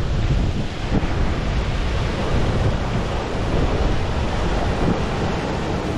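Wind buffeting the action camera's microphone: a steady, dense low rumble.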